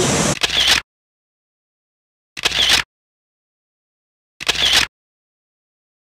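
Camera shutter click sound effect, three times about two seconds apart, with dead silence between. The rushing of the waterfall cuts off just before the first click.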